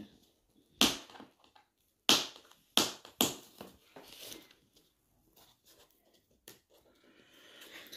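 Cardboard trimmer box being torn open at the bottom: four sharp rips and crackles of card in the first few seconds, then softer rustling and a single click.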